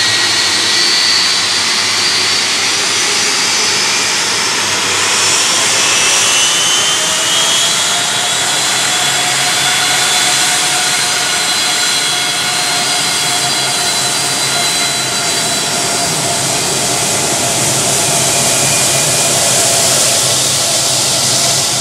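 Boeing 757's twin turbofan engines running at low thrust as the airliner taxis and turns onto the runway: a steady jet rumble and hiss with whining tones that rise in pitch a few seconds in, then hold steady.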